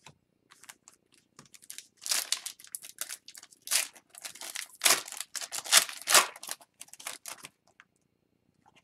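Foil hockey-card pack wrapper being torn open and crinkled by hand: a run of irregular crackling rustles, loudest just past the middle and thinning out near the end.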